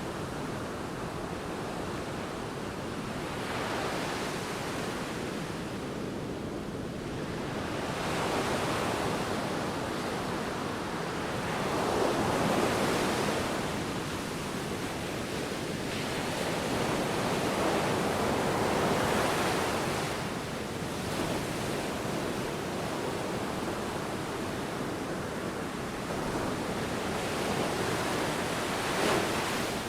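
Sea waves washing in, a steady rush of surf that swells as each wave breaks, every few seconds, with wind in the background.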